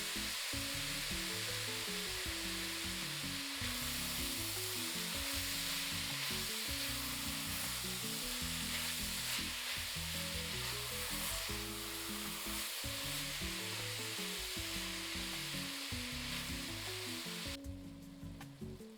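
Ground beef browning in a pot, sizzling steadily, under soft background music; the sizzle cuts off about a second before the end.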